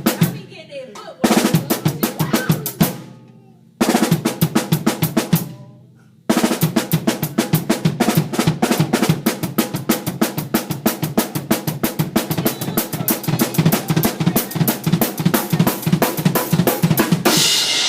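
Drum kit played with sticks: fast snare runs and fills in three short bursts with brief gaps, then a long continuous run of rapid strokes with kick drum underneath. Near the end a cymbal crash rings over the playing.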